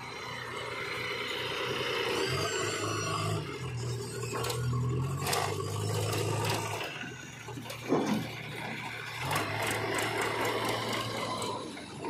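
Diesel engines of a JCB 3DX backhoe loader and a tractor running steadily, with scraping and knocks as the loader's bucket dumps soil into the tractor trolley, and a sharp thump about eight seconds in.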